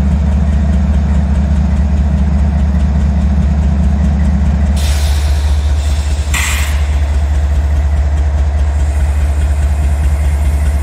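CSX diesel-electric locomotive engine idling with a loud, steady low drone while the train stands still. About five seconds in the engine note thins a little, and two short hisses follow, a second apart.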